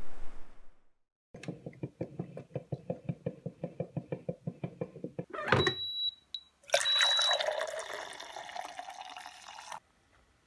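Drip coffee maker gurgling in a quick even run of pulses, about seven a second, then a few high electronic beeps. Coffee is then poured into a stainless travel mug, a steady filling splash for about three seconds that stops suddenly.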